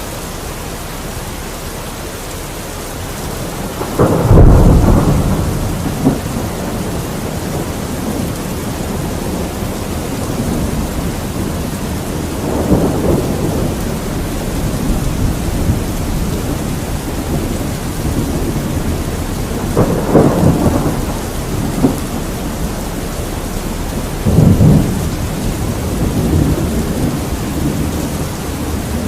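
Steady rain during a thunderstorm, with four rolls of thunder rumbling over it, the loudest about four seconds in and others near the middle and towards the end.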